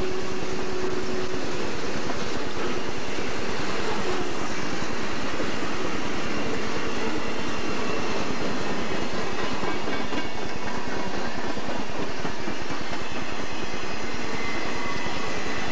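Freight cars of a Southern Pacific train rolling past close by: the steady noise of steel wheels running on the rails, loud and unbroken throughout.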